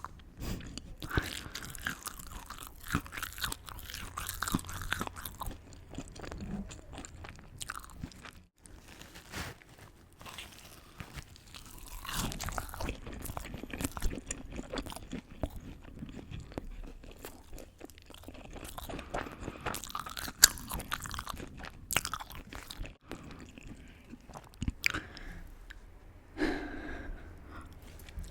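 Close-miked mukbang eating sounds: a person biting and chewing crunchy food, a dense run of crisp crunches and clicks that comes in clusters with short lulls.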